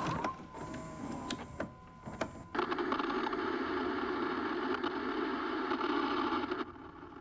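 Clicks and a thin steady whine of a video deck taking in a videotape, then about four seconds of loud television static hiss that cuts off suddenly.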